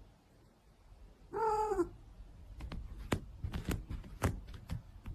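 Domestic cat giving one short meow about a second and a half in, followed by a run of light clicks and knocks.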